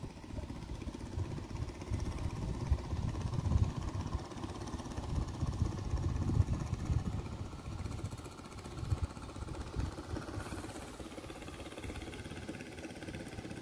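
Wind buffeting the microphone: an uneven low rumble that swells and drops with the gusts.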